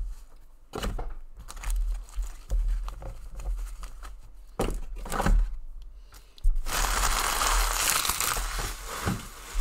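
Trading cards being handled on a table, with scattered short clicks and rustles, then about two-thirds of the way through a loud crinkling of packaging wrapper for about three seconds.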